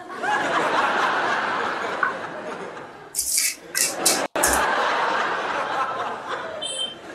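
Canned audience laughter. It is cut off abruptly for an instant about four seconds in, then resumes.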